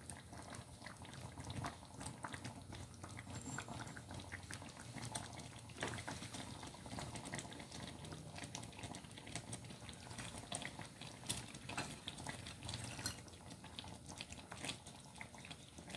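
Fish-head curry simmering in a pan with its oil risen to the top: faint bubbling made of many small pops, with a few sharper clicks now and then.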